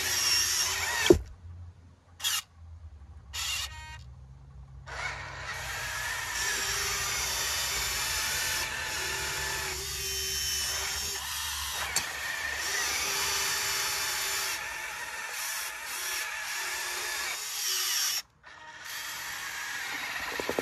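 Small electric motors and gearboxes of radio-controlled toy construction machines whining as they work, the motor tone starting and stopping again and again. The sound drops out almost entirely for a few seconds near the start and briefly near the end.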